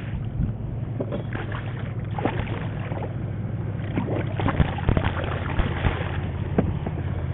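Boat motor running steadily with a low hum as a boat approaches, with scattered clicks and knocks over it.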